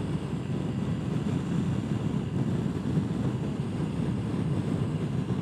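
Steady wind rush and road noise on the rider's microphone while riding a Suzuki Burgman 650 maxi-scooter at cruising speed.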